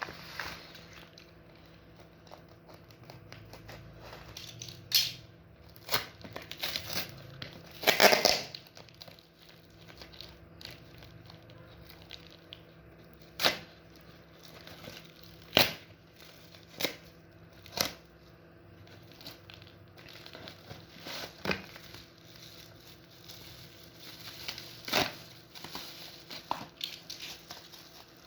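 Packaging of a parcel being torn open and crinkled by hand: scattered short rips and rustles, with a longer, louder tear about eight seconds in.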